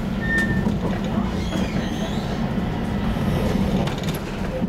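Stockholm A35 tram running along its track, heard from inside the car: a steady low rumble of the motors and wheels, with a short high tone about a quarter second in.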